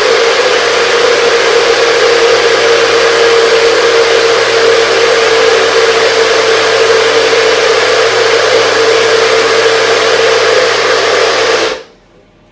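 Blender running with a steady whine, blending crushed ice and fruit into a smoothie, then switched off and stopping abruptly near the end.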